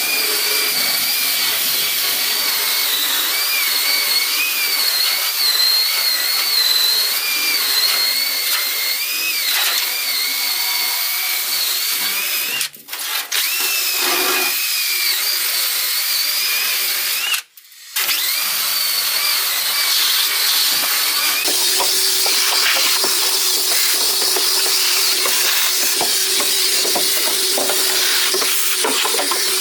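Angle grinder grinding sheet-steel car floor panel, a loud continuous grinding with a whine that wavers in pitch as the load changes. It cuts out briefly twice midway. Later the tone settles into a steadier, lower hum.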